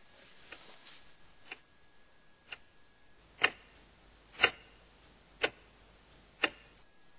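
Quartz wall clock ticking once a second. The ticks are faint at first and much louder from about three seconds in.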